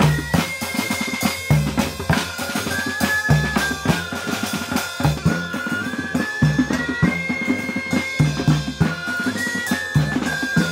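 Street band music: bass drum and snare drum beating a steady march rhythm under a repeating tuba bass line, with a high melody of held notes stepping up and down on top.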